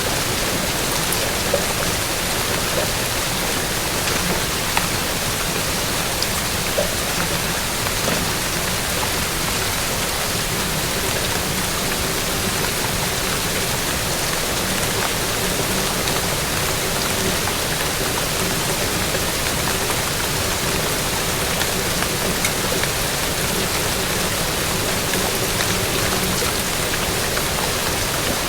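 Steady rain falling, an even hiss with occasional individual drops ticking.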